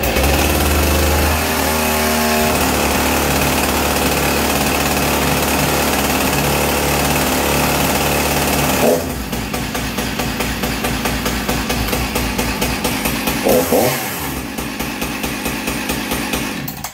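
Two-stroke chainsaw just started and running at a fast high idle with the choke pushed in. About nine seconds in, a quick blip of the throttle releases the high idle and it drops to a slower, uneven low idle. It cuts off suddenly near the end.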